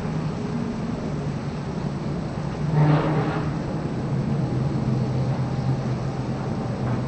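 Unexplained low droning hum of several steady tones that shift in pitch, with one louder, higher swell about three seconds in: one of the 'strange sounds' heard over Toronto in May 2012, which at first seemed like neighbours dragging furniture.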